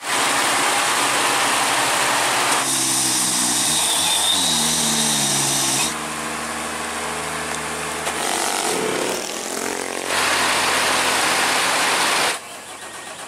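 A container truck's diesel engine labouring and revving on a climb, its pitch sliding down and up, over a loud steady hiss of rain. The sound changes abruptly several times as the shots cut.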